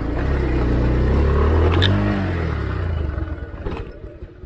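Motorcycle engine revving hard as the bike is ridden up a steep off-road slope. The revs rise and fall, and the engine fades away about three seconds in.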